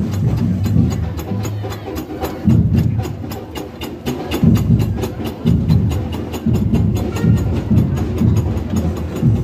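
Background music with a steady quick beat of sharp clicks, about four to five a second, over a heavy low bass line.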